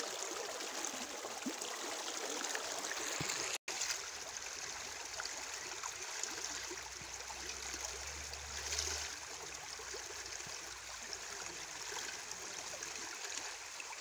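River water flowing in a steady rush, churning against the bank where the current turns sideways, with a split-second break a few seconds in.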